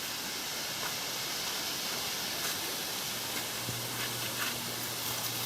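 Small creek cascade waterfall rushing steadily.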